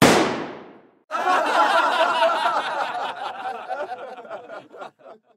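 Logo-intro sound effects: a sudden hit that dies away over about a second, then a burst of canned crowd laughter that thins out and stops about four seconds later.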